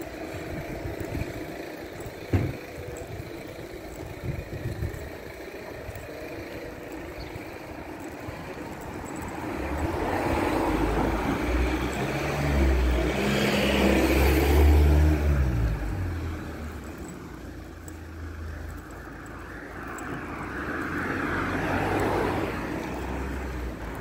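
A motor vehicle passes close by: its engine and tyre noise swell up about ten seconds in, peak, then fade. A second, fainter vehicle swells and fades near the end, and a single sharp knock comes a couple of seconds in.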